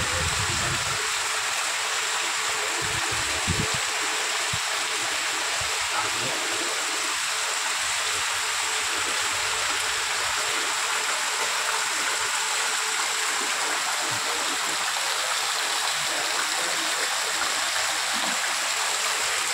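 Heavy rain pouring down steadily, a constant hiss of drops on paving, vehicles and roofs.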